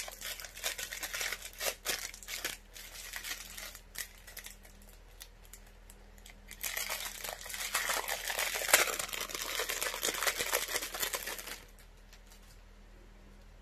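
Crinkly packaging rustling and crackling as hoop earrings are unwrapped. There are scattered crackles at first, then a denser, louder spell from about halfway through that stops suddenly shortly before the end.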